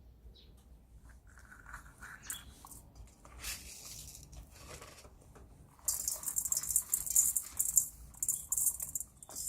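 Kitchen food-preparation sounds: scattered light clicks and scrapes, then from about six seconds in a rapid dry rattling scrape that is the loudest part.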